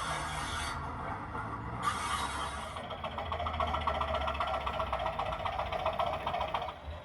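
Model class 205 'Thumper' DMU's ESU LokSound V5 sound decoder playing its diesel engine sound through the model's small speaker. About three seconds in it settles into a rapid, even pulsing, and it stops abruptly just before the end.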